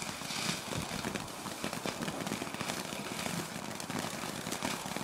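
A small firework burning, a dense hiss packed with rapid crackles that starts suddenly and keeps going at a steady level.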